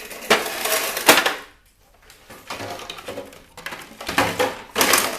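Clattering and rattling of metal and plastic parts as a partly dismantled CD changer is handled and set down, in two spells with a short pause between and the loudest clatter near the end.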